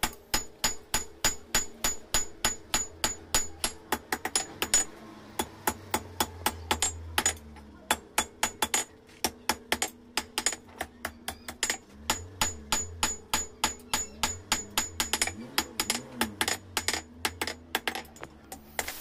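Blacksmith's hand hammer striking the red-hot end of a steel rebar on an anvil, about four blows a second with the anvil ringing after each and a couple of short pauses. The rebar end is being forged flat for the jaw of a pair of tongs.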